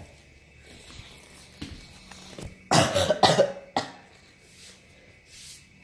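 A woman coughing: a quick run of three harsh coughs about three seconds in, after a smaller one earlier.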